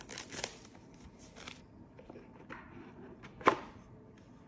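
Clear plastic shrink wrap being picked at and peeled off a cardboard box, crinkling through the first second and a half with small scattered ticks after, then one sharp snap about three and a half seconds in as the box lid comes off.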